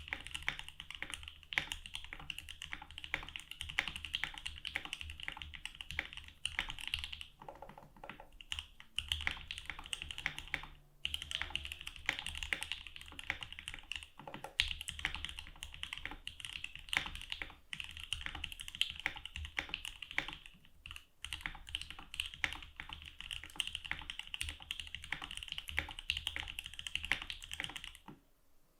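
Continuous fast typing on a mechanical keyboard with lubed and filmed JWK Durock L3 linear switches in an FB60 60% case: a rapid stream of key bottom-outs and returns, pausing briefly a few times and near the end.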